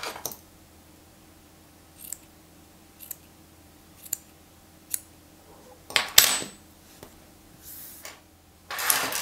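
Scissors snipping through acrylic-type yarn, trimming the ends of a yarn tassel: single sharp snips roughly a second apart, then a louder cut about six seconds in. A longer rustle of handling near the end.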